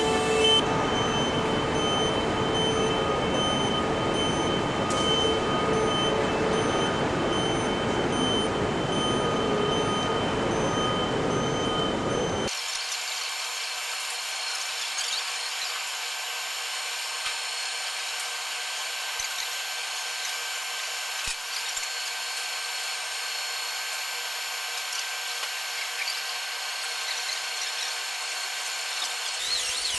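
Steady machinery and power-tool noise in a large assembly hall, with a steady hum running through it. About twelve seconds in it changes abruptly to a thinner, higher hiss with several steady whining tones.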